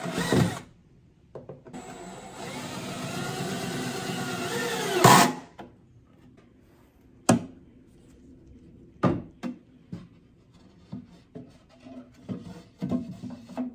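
Power drill running for about four seconds, its pitch swelling before it stops, followed by a few separate sharp clicks and knocks.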